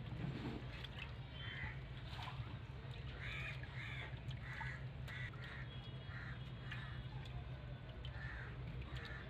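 Crows cawing again and again: about a dozen short caws, some in quick pairs, over a steady low hum.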